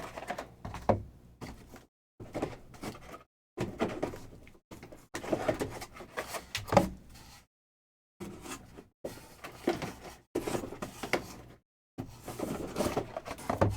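Cardboard card boxes and packs being handled on a table: irregular sliding, rustling and scraping, with a few sharp taps and knocks, in bursts broken by short silent gaps.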